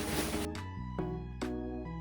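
Background music, with gentle pitched notes struck about every half second. A hiss-like noise from the scene stops suddenly about half a second in.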